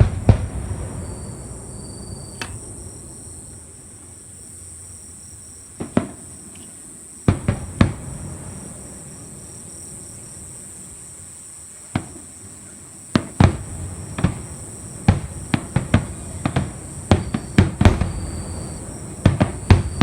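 Distant fireworks going off, muffled through closed windows: a few scattered bangs, then a quickening run of bangs in the second half.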